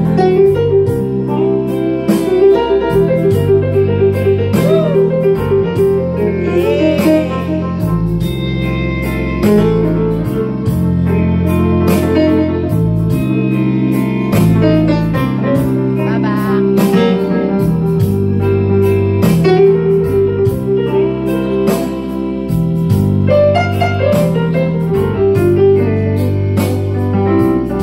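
Digital keyboard played live in a piano voice: chords over a bass line that moves every second or so.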